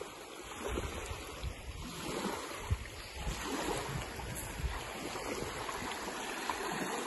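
Small waves lapping on the lake shore in a steady wash, with irregular gusts of wind buffeting the microphone.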